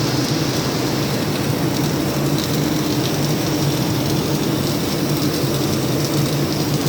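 Flux-cored arc welding arc crackling and spattering steadily as an automatic gantry welder runs a fillet weld, with a steady low hum underneath.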